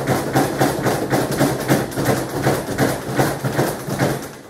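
Rapid, even pounding on a house's doors and walls, about four or five blows a second, with a steady low hum beneath.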